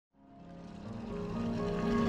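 Music fading in from silence, made of sustained, layered tones.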